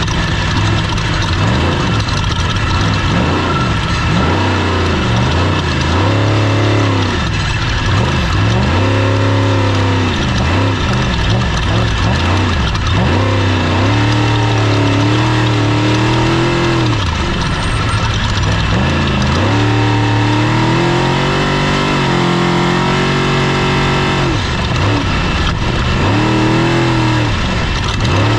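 Off-road race vehicle's engine revving up and down again and again as it is driven hard, with a couple of longer stretches held at high revs, over a constant noisy rush.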